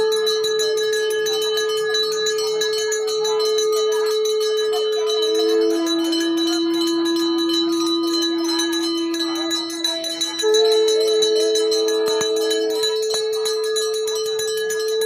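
Pooja hand bell rung rapidly and without a break during the worship, while conch shells are blown in long steady notes at two pitches: a higher note, then a lower one that overlaps it, then the higher note again near the end.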